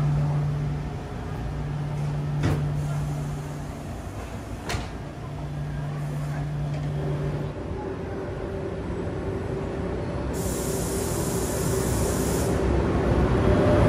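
KTX high-speed train sounds: a steady low electric hum that gives way to a higher hum about halfway through, two sharp clicks, and a hiss of air lasting about two seconds near the end.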